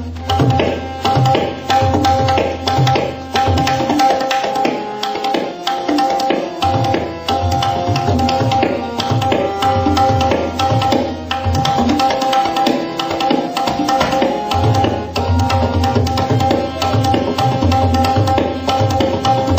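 Tabla solo: rapid strokes on the right-hand drum with deep resonant strokes on the bass drum, over a melodic accompaniment holding steady notes. The deep bass strokes stop for a few seconds about four seconds in and again briefly around thirteen seconds, then return.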